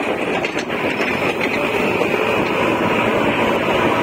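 Steady rush of vehicle noise from riding alongside a moving JCB 3DX backhoe loader: the machine's diesel engine and tyres together with the bike's own running and wind. A few faint rattles come about half a second to a second and a half in.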